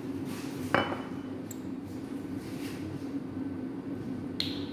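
A single sharp knock, as of a glass sauce bottle set down on the counter, then a faint click and a short rustle of handling, over a steady low hum.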